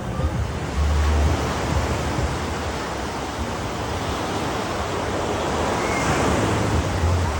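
Ocean surf breaking on the beach, a steady wash of waves with wind buffeting the microphone; a wave's crash swells louder about six seconds in.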